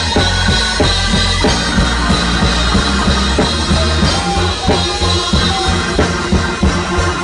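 Live gospel band playing: a drum kit with kick drum, snare and cymbal hits close by, over steady bass notes and held chords.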